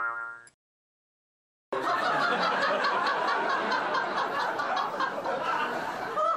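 The fading end of a cartoon boing sound effect. Then, after a second of silence, a group of people laughing and chuckling together, steady and continuous.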